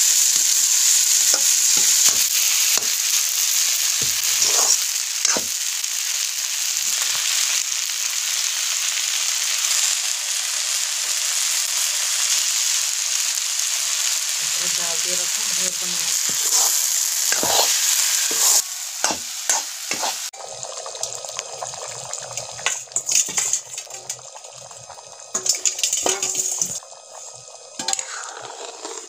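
Peas and egg frying and sizzling in a wok over a wood fire, with a metal spatula scraping and knocking against the pan as it is stirred. About twenty seconds in the sizzle cuts off abruptly as water goes in for the curry gravy, and quieter scattered clicks and knocks follow.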